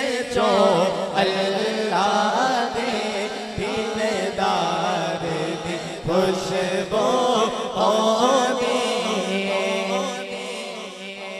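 A man singing a naat into a microphone in a wavering, richly ornamented voice, carried over the sound system above a steady held drone; the voice fades off near the end.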